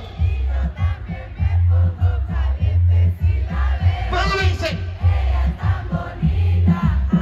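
Live reggaeton through a festival PA, heard from within the crowd: a heavy, steady bass beat under a male vocalist rapping, with the crowd singing along and cheering.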